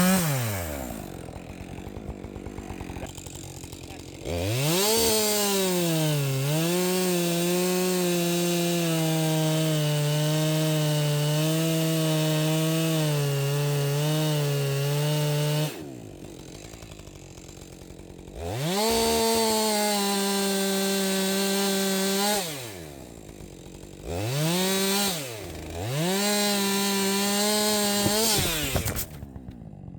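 Two-stroke chainsaw with a 20-inch bar cutting through a fallen tree trunk. It revs up into a cut of about eleven seconds, with its pitch dipping just after it peaks and then holding lower. It drops back to idle, then revs in three shorter bursts near the end before idling again.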